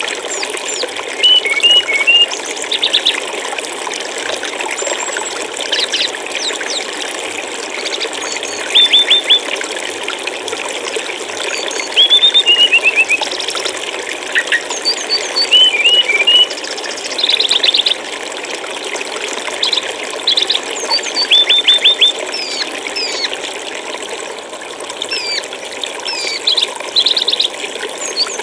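Steady flowing water with a small songbird, a sikatan rimba dada coklat (brown-chested jungle flycatcher), singing over it in short repeated phrases of a few quick, high chirps every second or two.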